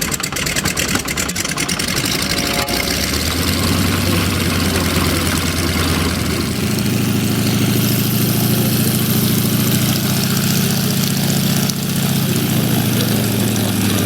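Nine-cylinder radial engine of a Yak-50/Yak-52 aerobatic plane starting: uneven firing for the first few seconds, then it catches about three seconds in and settles into a steady run with the propeller turning, picking up a little about six seconds in.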